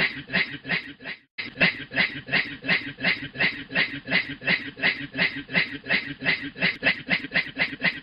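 A man's rhythmic, breathy 'hue hue' laughing that imitates a train chugging, about four pulses a second, with a short break about a second in.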